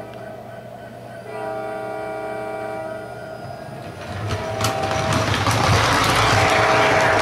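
MTH O-gauge model diesel locomotive running in conventional mode, its onboard sound system giving one long chord-horn blast about a second in. From about four seconds in the locomotive rolls up and passes close by, with a loud rumble and clatter of its wheels and motors on the three-rail track.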